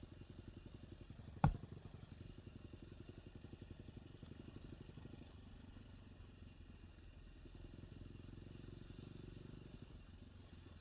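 Off-road enduro motorcycle engine running steadily at low revs, with one sharp knock about a second and a half in.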